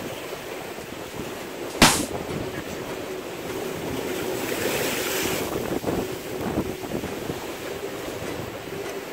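Sea waves washing against the rocks, with wind on the microphone. A single sharp click sounds about two seconds in, and a louder wash of hiss swells and fades about four to five seconds in.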